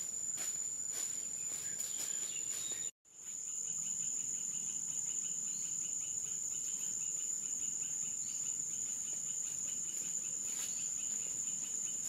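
Steady high-pitched insect drone, with footsteps crunching on dry leaves in the first three seconds. The sound drops out for a moment about three seconds in, then the drone carries on alone with a faint fast pulsing chirp under it.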